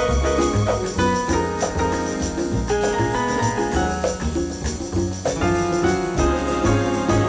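Upbeat background music with a steady bass beat, bright bell-like chimes and a keyboard playing over it.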